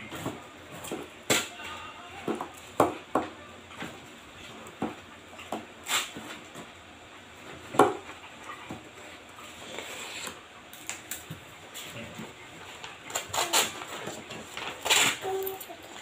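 Sheets of paper being folded and handled, rustling with irregular sharp crinkles and taps, busier near the end.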